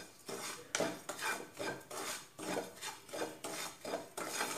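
Wooden spatula scraping and stirring wheat rava (coarse wheat semolina) as it roasts in a nonstick pan. The gritty strokes come roughly twice a second.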